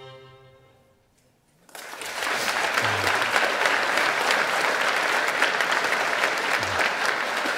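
Music with a held note fades out, and after a short gap an audience breaks into applause that carries on steadily.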